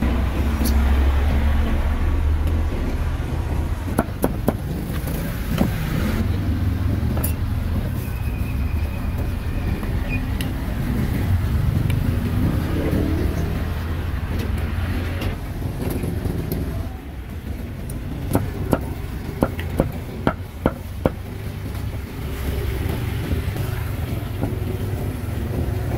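Steady low rumble of street traffic, with a few sharp knocks about four to six seconds in and a quick run of them near the end.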